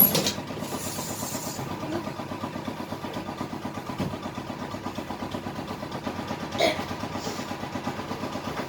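A steady, evenly pulsing mechanical hum like a small motor running, with a sharp click at the very start and a brief short sound about six and a half seconds in.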